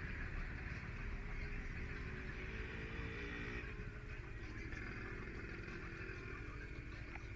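Small scooter engine idling steadily, with a brief pitched engine sound from passing traffic about two to three seconds in.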